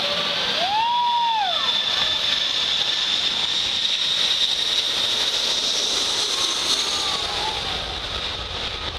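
Jet engines of a low-flying four-engine Airbus A340 airliner: a loud, steady rush with a high whine. About a second in there is a brief rising-and-falling call.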